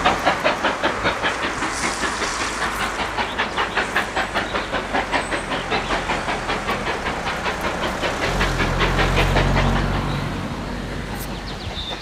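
Steam locomotive working under steam, with exhaust beats at about four a second over a steady hiss, dying away near the end. The locomotive is a BR Standard Class 4 2-6-4 tank engine.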